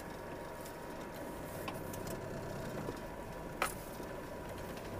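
Car engine running at low revs, heard from inside the cabin as a steady low hum, with a sharp click about three and a half seconds in.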